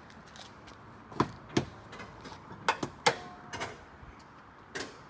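Honda Civic EG hatchback's hood being released, lifted and propped open: a series of sharp clicks and metallic knocks from the latch and prop rod, with a brief ringing note from the metal a little past the middle.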